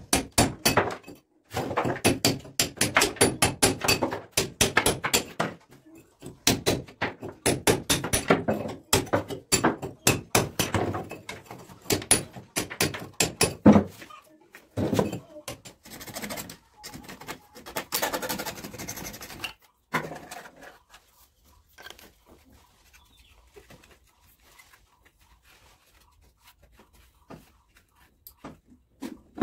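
Hammer striking a steel chisel to cut a groove in a brick wall for electrical wiring conduit: rapid, sharp clinking blows for about the first half, then slower, scattered strikes, stopping about two thirds of the way through with only faint ticks after.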